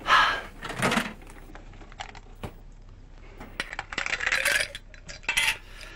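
A drinking glass and kitchen things clinking and knocking as they are handled: several sharp separate clinks, with a short stretch of rubbing or rustling between them.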